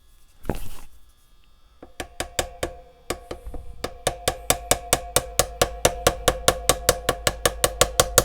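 Rapid light tapping with a small tool, a wedge being tapped into a tight Stratocaster knob to force it apart, about four to five ringing knocks a second that start about two seconds in and stop near the end. A brief scrape or rustle comes about half a second in.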